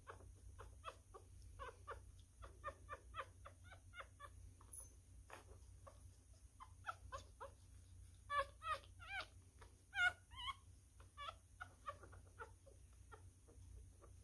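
Newborn miniature schnauzer puppy squeaking and whimpering in short, high calls, a few a second, with louder cries about eight to ten seconds in.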